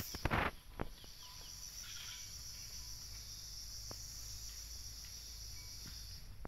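Steady high-pitched chirring of insects, over a low outdoor rumble. A few loud, sharp knocks come in the first second, with faint clicks later.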